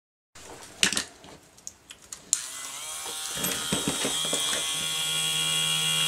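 A few clicks, then a small handheld rotary tool fitted with a thin cutting disc is switched on about two seconds in: a whine that rises briefly as the motor spins up, then runs steadily.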